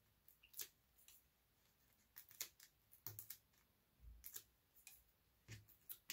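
Faint, irregular little clicks and paper ticks of fingernails picking and peeling the release papers off small foam adhesive squares on cardstock die-cuts.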